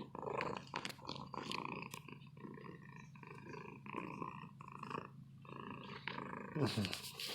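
Pet cat purring steadily, with light rustling and scattered clicks.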